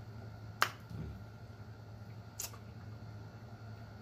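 Eating cooked chicken feet: two sharp mouth-smacking clicks, about two seconds apart, as the meat is sucked off the bones, over a steady low hum.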